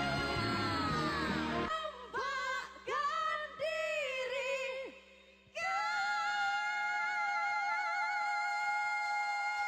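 Pop song in Indonesian: the full band drops out about two seconds in, leaving a solo voice singing short melismatic runs over a low sustained note. After a brief near pause, the voice holds one long note with vibrato.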